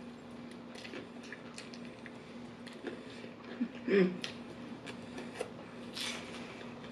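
Close-miked eating sounds: wet mouth clicks and lip smacks as fried chicken is picked and sucked off the bone by hand. A short hummed sound comes about four seconds in, and a louder sucking sound near six seconds.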